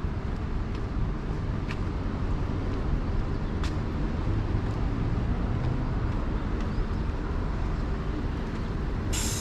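Outdoor street ambience: a steady low rumble of passing traffic, with a sudden hiss starting at the very end.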